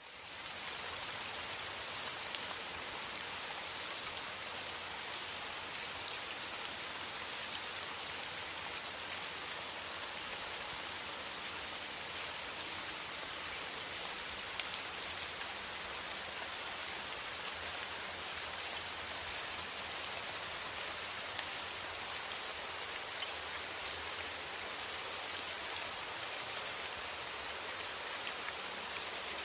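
Steady rain sound, an even hiss with faint scattered patter, fading in at the very start.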